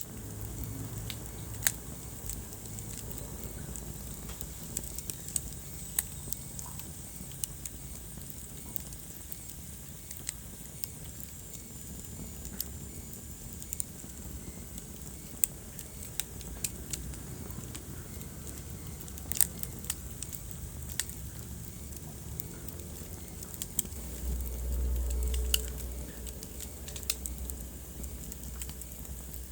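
Wood fire crackling in a fireplace, with sharp irregular pops and snaps over a steady low rumble of the flames. A louder low rumble swells for a couple of seconds near the end.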